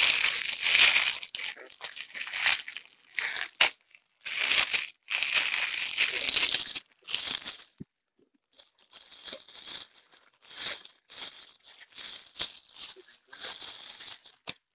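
Plastic packaging crinkling and rustling as it is unwrapped by hand, in irregular bursts, with a brief silent gap about eight seconds in.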